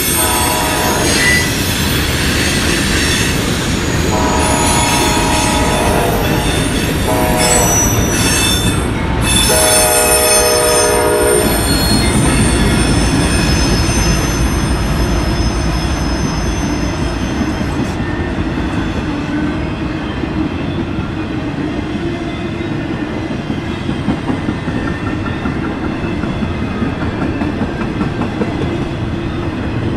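CSX freight train rolling past with a steady rumble and squealing wheels. Its locomotive horn sounds four times in the first twelve seconds, the third blast shortest and the last longest. The wheel squeal fades about eighteen seconds in, leaving the rolling rumble.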